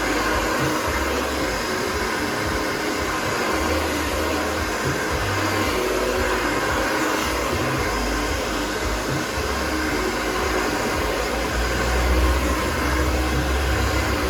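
Steady, loud rushing noise with an uneven low rumble underneath.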